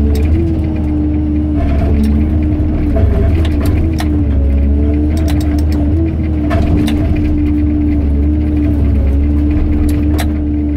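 Excavator's diesel engine and hydraulics running steadily under load, with a held droning tone, while its hydraulic pulverizer crushes reinforced concrete, giving scattered sharp cracks and crunches of breaking concrete.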